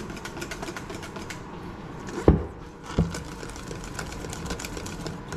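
Pancake batter being beaten by hand in a metal bowl, the utensil ticking rapidly against the bowl, with two louder knocks a little past two and three seconds in.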